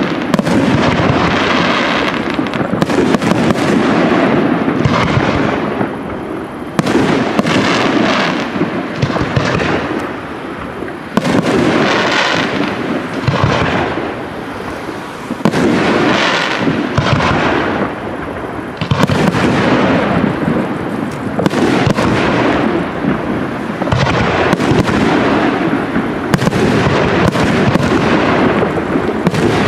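Aerial firework shells bursting in rapid, overlapping succession, bang after bang almost without pause, easing briefly a few times before picking up again.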